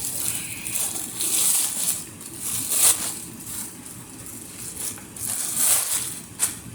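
Plastic bag packaging crinkling and rustling in irregular bursts, with sharp crackles, as a bathing suit is pulled out of it by hand.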